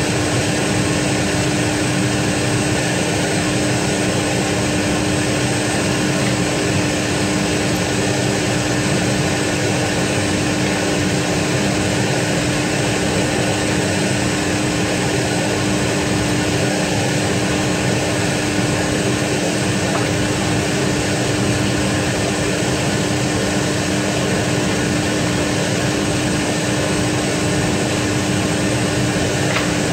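Steady machine drone with a constant low hum from a parked Fokker 100 jet airliner at the stand, holding level without a break.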